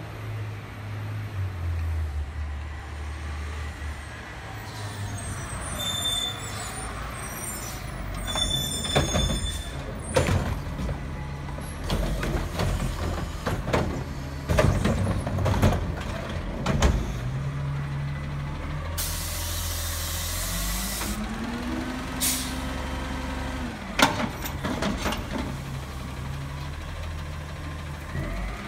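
Automated side-loading garbage truck emptying a yard-waste cart. The diesel engine runs under repeated knocks and bangs as the arm lifts and shakes the cart over the hopper. Later comes a long air-brake hiss, then the engine rises in pitch as it drives the hydraulics, and a sharp clank as the cart is set back down.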